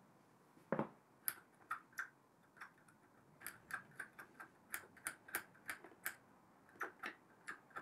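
A thin metal pick scraping and clicking against the threads of a lathe cross-slide stud, clearing out old compacted dirt, oil and grease that jam the threads: a faint run of irregular little clicks, with a duller knock about a second in.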